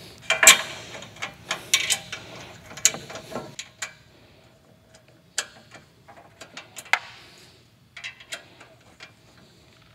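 Metal clicks and clinks of a 10 mm box-end wrench working a nut off a tailgate table hinge bolt, held against a 4 mm Allen wrench. The clicks come quickly and close together for the first few seconds, then turn sparse and scattered.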